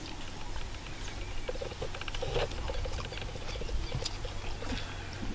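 Scattered small clicks and soft mouth noises of someone eating rice and prawn thokku by hand and chewing.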